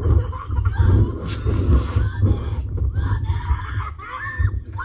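A young boy screaming on a slingshot ride in short, high, squawking yelps that come quickly one after another in the second half, over a heavy rumble of wind on the ride's microphone.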